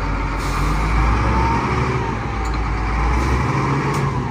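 SDLG 953L wheel loader's diesel engine running as the machine is driven off on a test after a brake repair, with a wavering whine over the low engine rumble. The engine note drops about three and a half seconds in, and there is a single click near the end.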